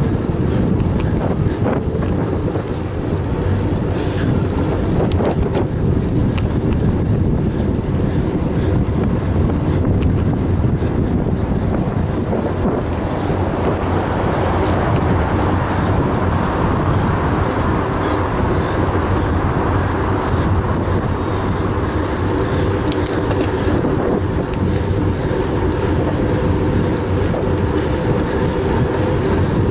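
Steady rush of wind on the microphone mixed with the hum of road-bike tyres on pavement, ridden at about 21–28 km/h, with a few light clicks and a swell of louder noise in the middle.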